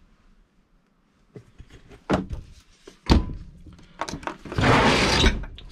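Two sharp thunks, then a loud rough sliding rumble of about a second as a truck camper's slide-out pantry is pulled out on its runners, which the owner says need fixing.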